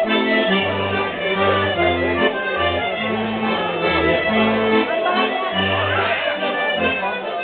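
Accordion playing a mazurka for dancing, with a moving bass line under the melody, and crowd voices faintly underneath.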